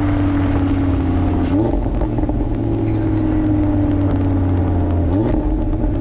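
Audi RS3's turbocharged five-cylinder engine running while the car is driven, picked up by a microphone in the engine bay. Its note sinks slowly and twice jumps quickly up in pitch, about a second and a half in and again near the end, before sinking again.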